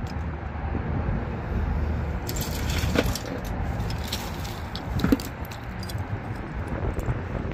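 Small plastic G.I. Joe figure parts and weapons clicking and rattling against each other as a hand rummages through them in a dirt-filled cardboard box, with two sharper clicks about three and five seconds in. A steady low rumble runs underneath.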